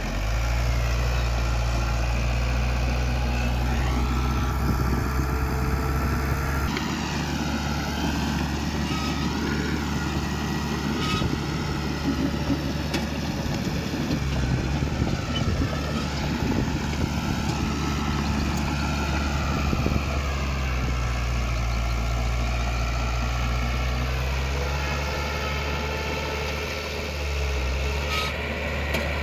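Diesel engine of heavy earthmoving machinery running steadily, with a wavering higher whine over its low note. The engine note shifts a few times.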